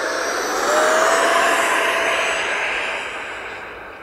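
Electric ducted-fan jet, a FlyFans Saab JAS-39 Gripen with a 12-blade 70 mm fan on a 1900 kV inrunner motor, spooling up for takeoff: a loud whine that rises in pitch about half a second in, is loudest in the first half, then fades away.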